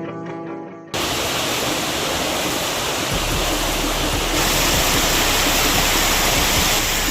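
Waterfall rushing: a loud, steady roar of falling water that starts abruptly about a second in, after a few guitar notes fade out.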